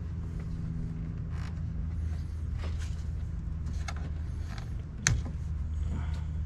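Rubber and plastic air-intake parts being worked loose by hand, creaking with scattered clicks and a sharper click about five seconds in, over a steady low hum.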